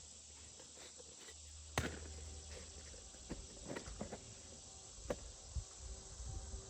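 Faint clicks and light knocks of corrugated plastic drainage pipe being handled as an internal coupling is pushed in to join perforated and solid pipe, the sharpest about two seconds in. Under them is a steady high chirring of insects.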